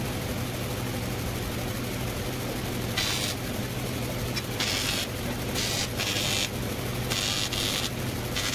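Welding torch hissing in about six short bursts, each under half a second, from about three seconds in: tack welds being laid on an aluminium tube seat frame. A steady low hum runs underneath.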